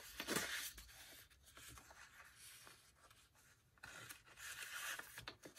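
Paper rustling and rubbing on paper as a tall paper tag is handled and slid into a journal pocket, in two bouts: one at the start and a longer one from about four seconds in.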